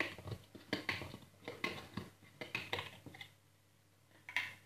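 Metal lid of a jar of home-canned chicken stew being opened: a run of short, sharp clicks and scrapes for about three seconds, a pause, then one more scrape near the end.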